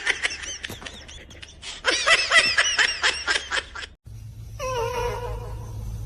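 A person laughing hard in quick, repeated bursts, which stops abruptly about four seconds in. After that comes a quieter pitched, wavering call or voice over a low hum.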